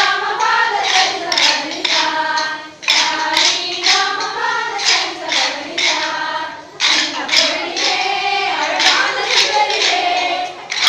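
A group of voices singing together in phrases, with sharp hand claps keeping a regular beat.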